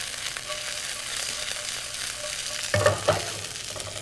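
Shishito peppers sizzling in hot olive oil in a pan over a gas burner as they blister, with the pan tossed to stir them. A brief louder sound comes about three quarters of the way through.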